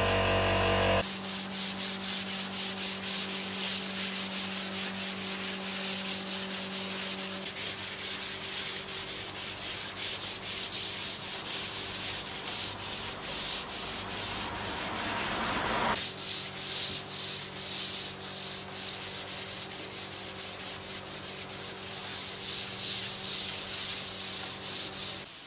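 Wood being sanded in quick, rhythmic back-and-forth strokes, with a faint steady hum underneath.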